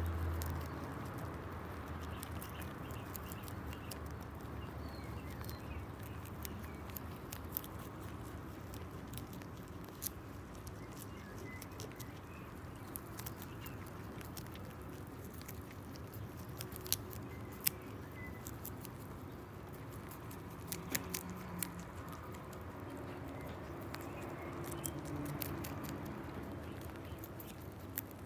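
Three lop-eared rabbits nibbling and chewing dandelion flowers and stems: a steady run of small crisp crunches and clicks.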